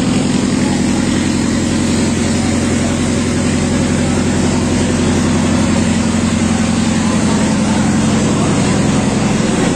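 A river passenger launch's engine running steadily: a deep, even drone with a constant hiss over it.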